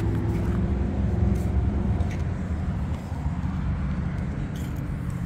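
Steady low rumble of road and tyre noise, as heard inside a moving car, with a few faint clicks.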